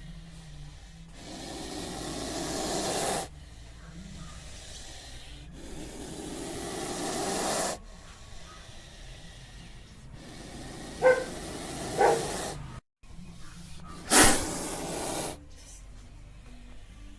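Snake hissing: long drawn-out hisses of about two seconds each, coming every four seconds or so, with one sudden, louder hiss near the end.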